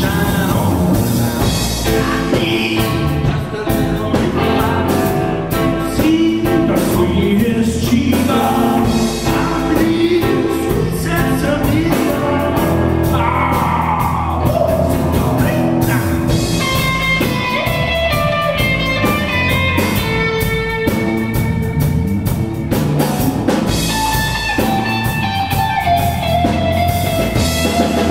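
Three-piece rock band playing live: electric guitar, electric bass and drum kit, loud and continuous.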